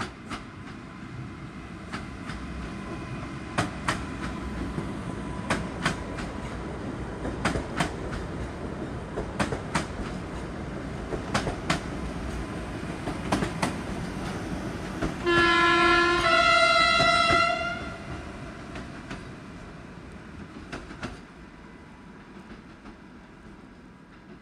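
Koleje Dolnośląskie 45WE electric multiple unit passing close by with a steady rumble, its wheels clicking over rail joints in pairs about every two seconds. About two-thirds of the way in, a two-tone horn sounds, a lower note and then a higher one, together about two seconds long, the loudest sound. The rumble and clicks fade away near the end.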